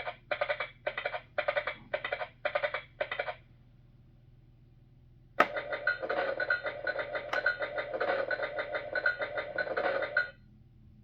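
Electronic sound effects from the Fisher-Price Great Adventures Magic Castle playset's small speaker: a quick run of repeated pulses, about two a second, ending about three seconds in. Then a sharp click, and a longer sound effect with a steady tone that plays for about five seconds and cuts off.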